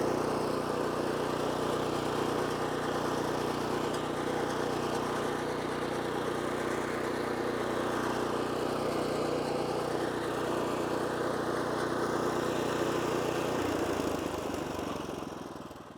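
Stump grinder's 14 HP Kohler Command Pro single-cylinder engine running steadily. About three-quarters of the way through its pitch drops, and it slows and dies away near the end.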